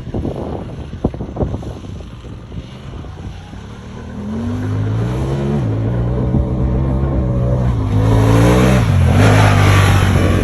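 Wind buffeting and knocks, then the Honda Talon 1000R side-by-side's parallel-twin engine comes in loud about four seconds in, revving up with its pitch dropping twice as it shifts, and a strong rush of wind noise over the last two seconds.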